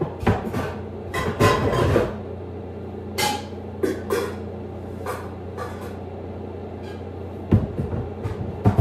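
Pots and pans being rummaged through, metal cookware clanking and knocking irregularly, over a steady low hum.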